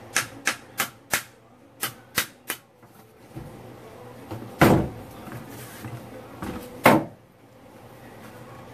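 Ball-peen hammer tapping on the steel CV joint of a Jeep Wrangler JK front driveshaft: about eight quick, sharp taps in the first two and a half seconds, then two heavier knocks a couple of seconds apart.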